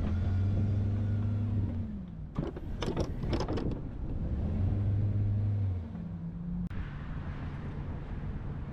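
Plow truck's engine working under load, easing off about two seconds in, then picking up again and holding before dropping back to a lower steady run near the end. A cluster of sharp knocks and clunks comes in the middle, as the engine eases off.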